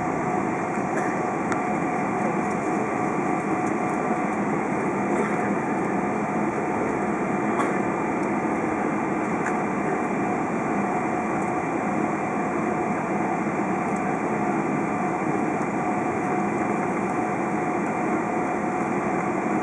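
Steady cabin hum of a Boeing 777-200 taxiing, its engines at low taxi power, with a few steady whining tones over the noise.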